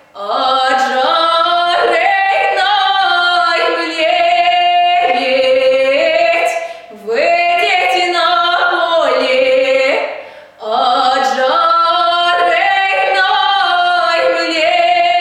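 A woman singing solo without accompaniment, a folk song in long held, ornamented phrases, with short pauses for breath about seven and ten and a half seconds in.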